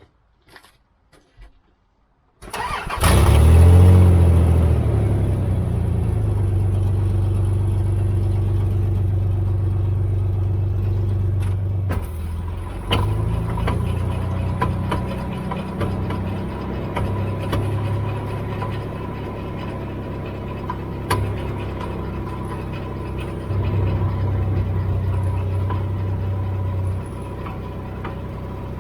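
A Dodge's engine cranks and starts about two seconds in, flares up briefly, then settles to a steady idle. A few sharp knocks stand out over the idle.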